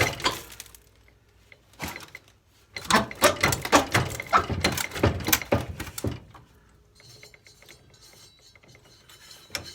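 Ratchet wrench clicking in quick runs as a bolt is worked on a lawn tractor's frame. The longest and loudest run comes from about three to six seconds in, and fainter scattered ticks follow.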